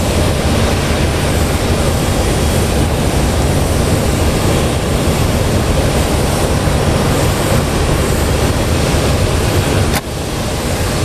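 Airbus A320 rolling slowly along the runway after landing: a steady low rumble of its jet engines at taxi power. The rumble dips sharply for a moment near the end.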